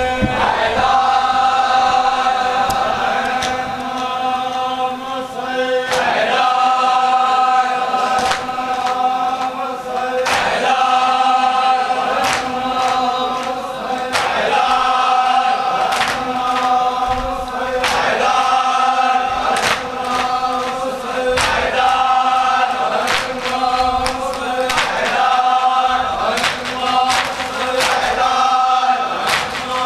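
A group of men chanting a noha together while beating their chests in unison (matam), a sharp slap about every one and a half seconds.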